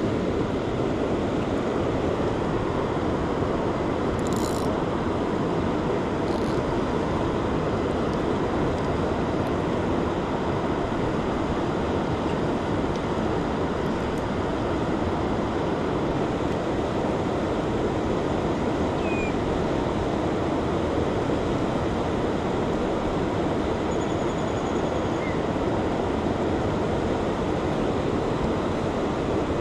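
Steady rush of surf and wind at the shore, even in level, with no other sound standing out.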